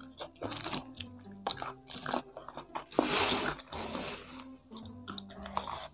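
Close-miked chewing and crunching of crispy fried chicken (ayam kremes) with its fried crumb topping. A louder crackly rustle comes about three seconds in, as a crumb-covered piece of chicken is handled, all over background music.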